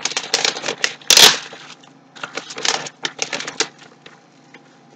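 Graphics card packaging being handled and opened: a run of irregular crinkles, taps and rustles, with one louder rustle about a second in.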